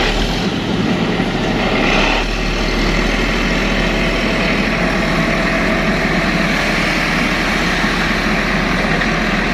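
Diesel engines of heavy equipment, an excavator and a grader, running steadily under load while pulling a disabled truck on a taut tow line.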